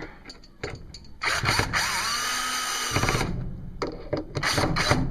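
Power drill running for about two seconds, driving in a screw, its motor whine rising and then holding steady before it stops. Short clicks and rattles come before and after.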